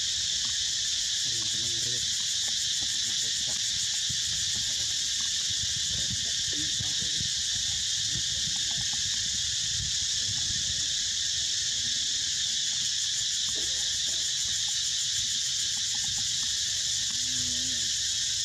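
Steady, high-pitched drone of an insect chorus, with faint short low sounds beneath it.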